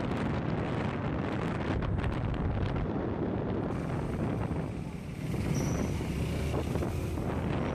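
Motor scooter riding at speed: engine and road rumble with wind rushing over the microphone. A brief high-pitched squeak about five and a half seconds in.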